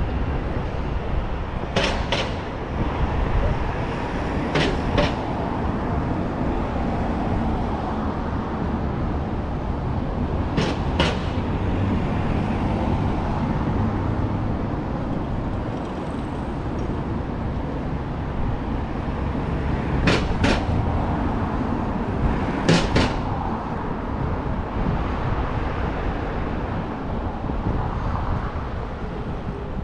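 Steady road traffic noise along a busy city street, broken five times by a pair of sharp clicks in quick succession.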